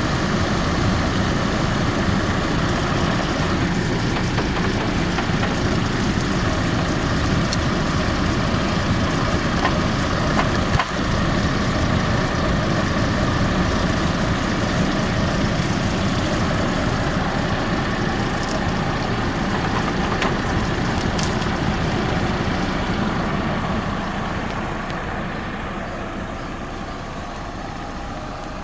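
Hummer H3 engine idling steadily, as it must run with the air conditioning on while refrigerant is recharged. There is a brief dip about eleven seconds in, and the sound gradually grows quieter over the last few seconds.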